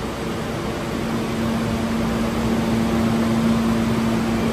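Steady hum and hiss of a subway platform, with one low electrical tone that grows a little louder about a second in.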